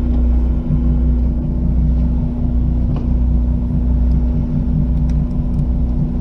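A fishing boat's engine running steadily: a constant low drone with a steady hum above it.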